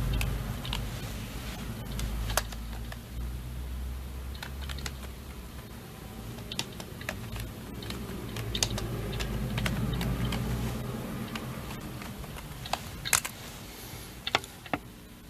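Irregular clicks of typing on a computer keyboard, a few louder keystrokes near the end, over a low rumble that fades out about eleven seconds in.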